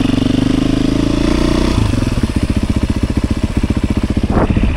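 Dual sport motorcycle engine running on the move. A steady engine tone gives way about two seconds in to a rougher, more open beat, as if the throttle changes.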